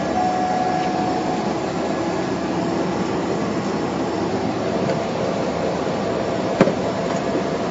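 Steady cabin drone of a Cessna 208B Caravan's PT6A turboprop engine and propeller running on the ground, heard from inside the cockpit. A thin tone sounds for about a second near the start, and a single sharp click comes near the end.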